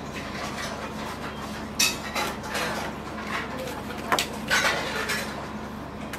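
Handling clatter on a repair workbench: an opened smartphone and small hard metal and plastic parts being set down and picked up, making a few sharp clicks and clinks. A steady low hum runs underneath.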